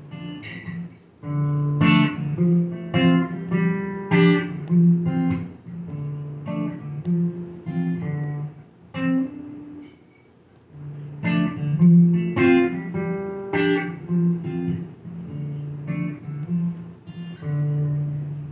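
Solo acoustic guitar playing an instrumental break between verses, strummed and picked chords ringing out. The playing drops away briefly about halfway through, then the strumming picks up again.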